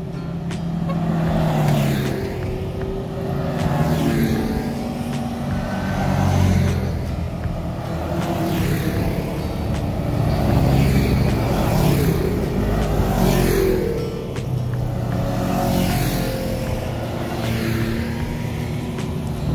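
Side-by-side UTV engine running while riding, its pitch rising and falling as the throttle changes.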